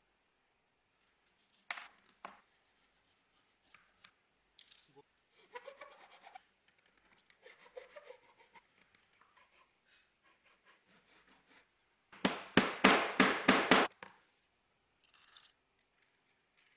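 Hand tool being worked on a clamped plate to cut a hole: a couple of sharp clicks, softer scraping, then a rapid run of about eight loud rasping strokes a little past the middle.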